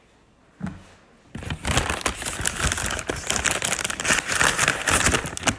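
Paper donut packaging crinkling and rustling as it is opened and handled close to the microphone: a dense, loud crackle that starts about a second in and runs on.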